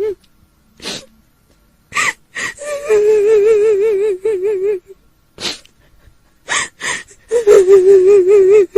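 A woman's voice doing the kuntilanak ghost's crying: a high wail with a fast, even waver, held for a second or two at a time, twice, broken by sharp gasping in-breaths and sobs.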